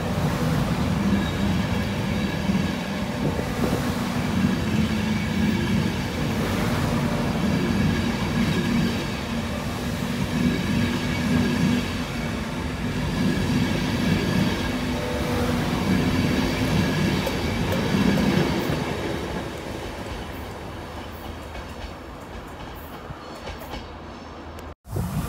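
Electric LNER InterCity 225 train's Mark 4 coaches passing at speed: wheels rumbling on the rails, then fading as the train draws away over the last few seconds. The sound cuts out abruptly for an instant just before the end.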